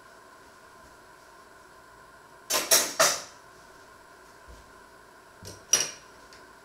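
Metal cutlery clattering as spoons and forks are set down onto a pile of cutlery on a wooden board: three quick sharp clinks about two and a half seconds in, then two more near the end.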